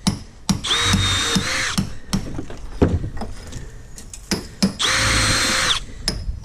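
Cordless drill-driver running in two short bursts of about a second each, driving fixings into a timber brace on a door lining, with knocks and clicks of handling wood in between.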